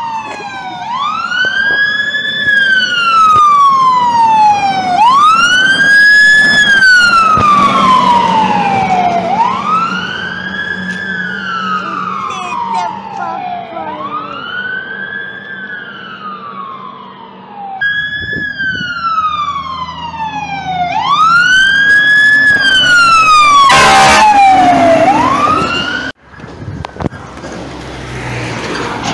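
Fire engine siren wailing, its pitch rising quickly and falling slowly in cycles of about four seconds. It breaks off and restarts about two-thirds in. Near the end there is a brief loud burst, then the siren cuts off abruptly, leaving street traffic noise.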